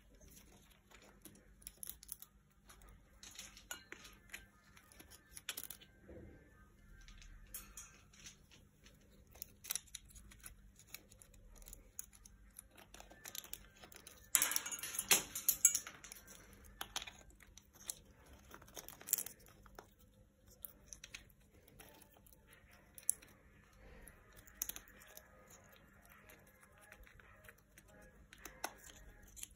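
Green-winged macaw cracking and crunching a walnut shell with its beak, an irregular run of sharp cracks and crunches, with a louder spell of crunching about halfway through.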